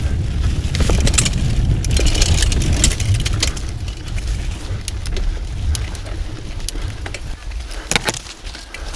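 Mountain bike riding over a dirt forest trail: a steady low rumble of tyres and air on the camera, with many small rattles and clicks from the bike. Leaves and branches brush past and knock once sharply about eight seconds in.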